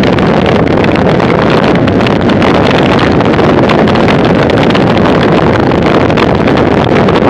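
Loud, steady wind rushing over the microphone of a camera on a bicycle moving at about 43 km/h.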